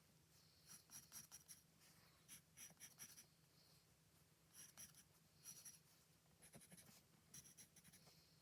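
Faint scratching of a drawing tool on paper, coming in four short runs of quick strokes. A faint steady low hum lies under it.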